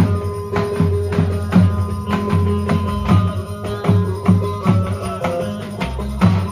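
Turkish folk dance music: a davul bass drum beats a steady rhythm of about two strokes a second under a held melody line.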